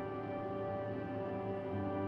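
Ambient electric-guitar drone played through effects pedals: many sustained tones layered and held steady, with a deeper low note coming in near the end.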